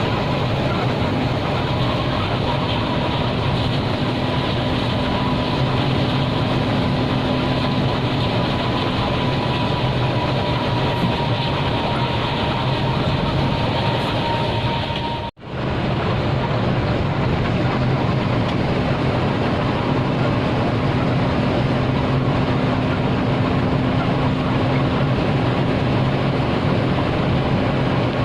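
Intercity bus on the move: steady engine and road noise with a faint steady whine. The sound cuts out for an instant about fifteen seconds in, then carries on as before.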